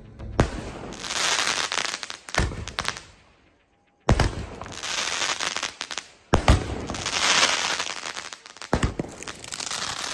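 Sky shot fireworks bursting overhead: about five sharp bangs, each followed by a few seconds of crackling sparks. The sound cuts out briefly a little after three seconds.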